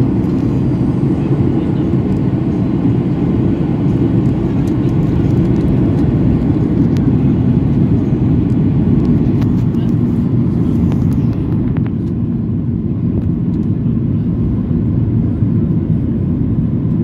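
Boeing 737 cabin noise in flight: a loud, steady rumble of the engines and airflow, heard from inside the cabin. The higher hiss drops away about twelve seconds in.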